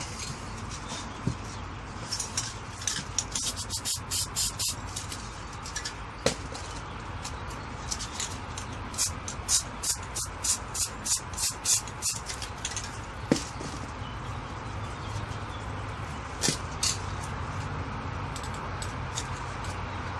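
Aerosol spray paint can spraying in many short hissing bursts, several a second at times, as paint is dabbed onto a canvas. Under it is a low, steady background hum.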